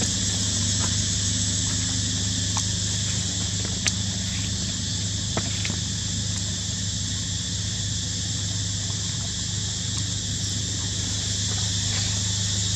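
Steady insect chorus with a continuous high drone and a low steady hum beneath it, broken by a few faint clicks or taps.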